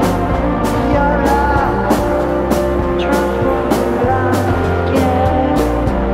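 Ambient alternative rock band music: sustained chords and gliding melodic lines over a steady drum beat.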